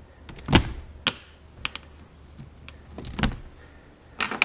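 Hard objects knocking and clattering as loose junk is handled and pulled out of a boat's storage compartment: about five separate sharp knocks, the loudest about half a second in.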